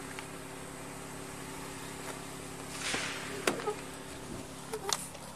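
A car engine idling steadily beside the roadside, with a brief rustle about three seconds in and two sharp clicks, one a little after that and one near the end.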